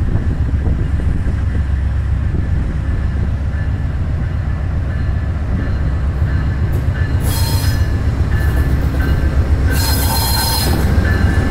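VIA Rail P42DC diesel locomotive running with a steady low rumble as it approaches, louder near the end. Its wheels squeal briefly twice, about seven and ten seconds in.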